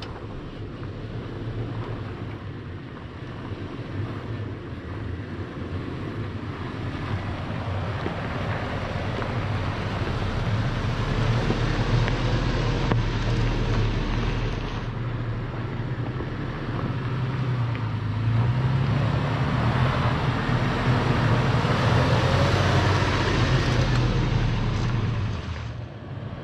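Toyota FJ Cruiser's V6 engine running as the truck crawls over sandstone, its pitch rising and falling with the throttle, under wind noise on the microphone. It grows louder over the stretch and drops away suddenly near the end.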